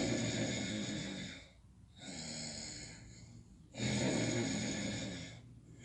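A sleeping man snoring: two loud, rasping snores, each about a second and a half long and about four seconds apart, with a quieter breath between them.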